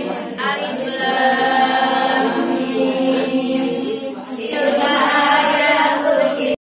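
A group of women chanting Islamic prayers together in unison, unaccompanied, with long held notes. The chanting cuts off suddenly near the end.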